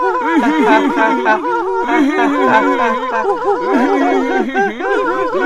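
Layered human laughter: one man's "ha ha ha" laughs recorded several times over and stacked to sound like a crowd laughing, as a sitcom laugh track.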